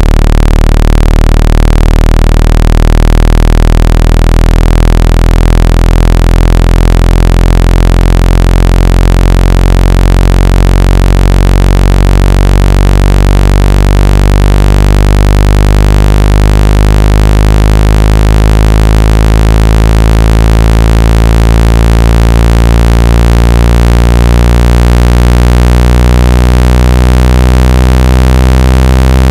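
Synthesized speaker water-ejection tone: a loud, steady, low buzzing tone rich in overtones, played to vibrate trapped water out of a phone or earphone speaker.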